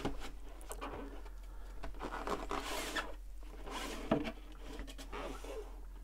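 Cardboard box being opened by hand: the paperboard sleeve sliding and scraping off the inner box, with soft rubbing swells and one light tap about four seconds in.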